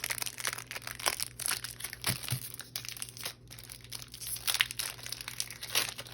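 Foil wrapper of a Pokémon trading card booster pack crinkling irregularly as it is handled and torn open.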